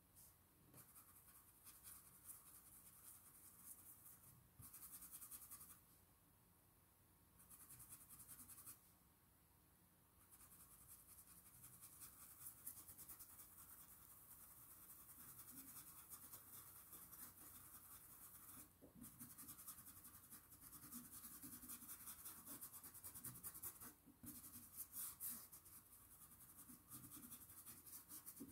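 Stiff stencil brush being rubbed over cloth to work fabric paint through a stencil: a faint, fast scratchy brushing with a few short pauses.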